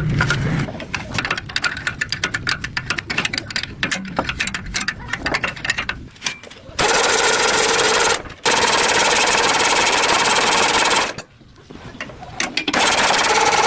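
A fast, irregular run of mechanical clicking and rattling. After about six seconds a motor-driven power tool takes over, running steadily with a whine, and is switched off and on again twice with short pauses.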